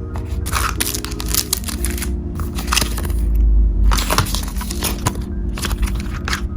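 Soft instrumental background music with sustained chords, overlaid by frequent crackling and clicking from packaging being handled during an unboxing.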